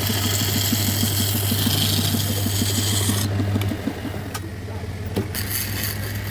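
A power woodworking machine running steadily with a fast low pulsing, while a tool scrapes against wood with a hissing rasp; the scraping stops about three seconds in and the motor keeps running.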